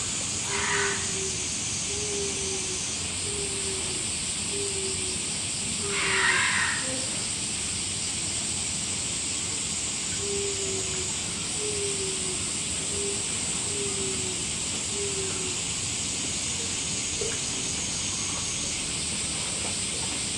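Cicadas droning steadily in a summer chorus. A short low falling note repeats about once a second in two runs, and two brief noisy sounds come near the start and, louder, about six seconds in.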